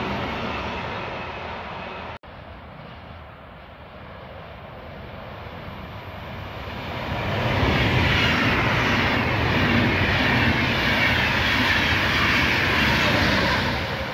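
Trains passing on an electrified main line: a freight train's wagons rumbling away and fading, then after a break about two seconds in, a Deutsche Bahn Intercity with a red electric locomotive approaching and passing close by, its wheels rumbling and the air rushing, loudest in the second half before it starts to fade.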